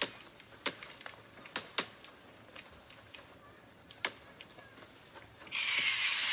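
Recorded rocket fireworks played back through a speaker: a handful of sharp, separate cracks, then about five and a half seconds in a loud hissing burst with a falling whistle in it.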